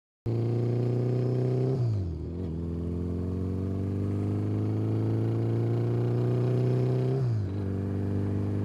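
1982 Honda Goldwing's flat-four engine accelerating on the road. Its pitch climbs steadily and drops at an upshift about two seconds in, then climbs again to a second upshift about seven seconds in.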